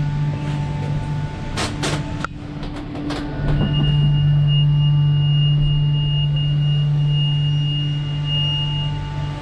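Cable-car gondola running through the station machinery: a steady mechanical hum with a few sharp clacks about two seconds in. From about three and a half seconds it grows louder, with a high steady whine until just before the end.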